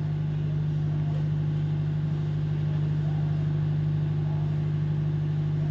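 Steady low drone of a ship's onboard machinery, an even hum with no change in pitch or level.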